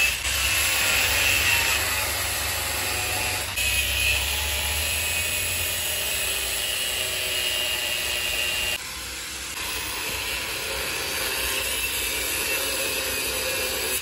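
Handheld angle grinder running with a steady high whine as its disc grinds into a steel channel, cutting off nuts and bolts that have rusted in and won't undo. The level drops a little about nine seconds in.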